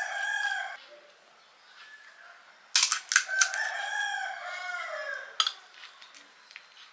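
A rooster crowing twice: a short call at the start, then a longer crow from about three seconds in that falls away at the end. Over the second crow come a few sharp crunches, crisp pani puri shells being bitten.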